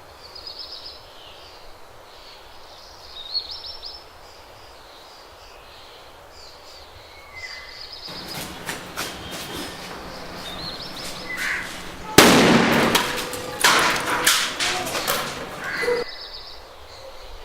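A firecracker going off: crackling pops build from about eight seconds in, then a loud blast lasting about a second, followed by more bangs and crackles. Birds chirp during the quieter first half.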